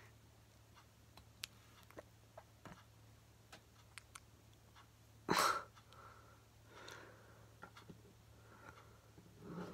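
Faint scattered clicks of plastic minidoll figures being handled and set down on a table, with a loud, short breath noise from the person about five seconds in and softer breaths near the end.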